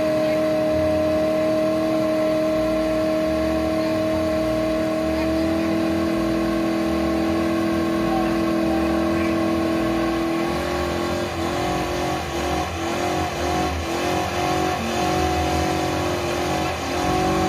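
Muscle car engine held at high revs during a burnout, its rear tires spinning in their own smoke. The engine note holds steady for about ten seconds, then begins to pulse up and down in quick repeated surges.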